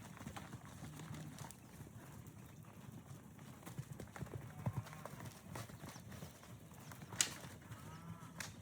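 Hooves of Hereford cattle running, a quick irregular patter of hoofbeats on the ground, with a sharp click about seven seconds in.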